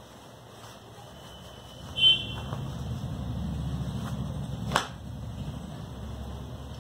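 A short high beep about two seconds in and a sharp click near five seconds, over a low steady rumble.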